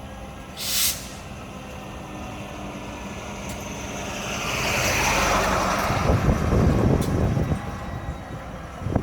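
Diesel freight locomotives running with a steady low hum. A short sharp burst of air hiss comes about half a second in. From about four seconds a louder rushing rumble swells up, its higher part sliding down in pitch, and is loudest around six to seven seconds.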